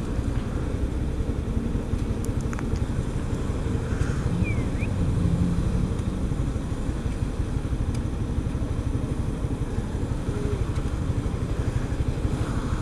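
Motorcycle engine idling steadily while the bike waits at a traffic light, a low, even rumble.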